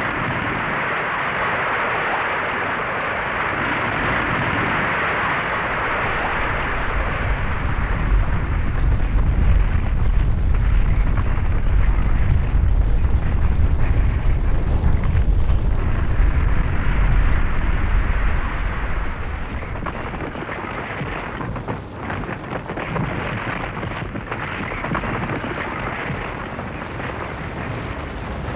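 Avalanche sound effect: a continuous rushing rumble. It starts as a hissing rush, builds into a deep, heavy rumble that is loudest around the middle, then eases off somewhat near the end.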